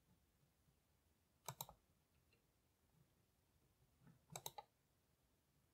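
Faint clicks from computer input during PCB layout work: a short cluster about one and a half seconds in and a quick run of several clicks a little after four seconds, over near-silent room tone.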